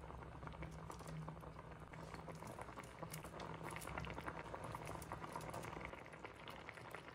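Beef, tomato and carrot broth simmering in a pot: a faint, steady bubbling made of many small pops.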